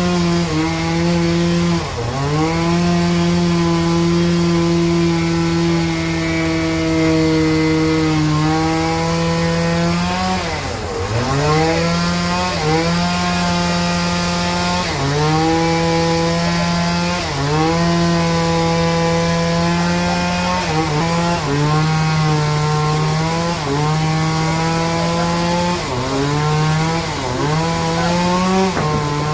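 Sawmill band saw running and cutting a log, its steady pitched drone sagging and recovering again and again as the blade takes load, with the deepest drop about eleven seconds in.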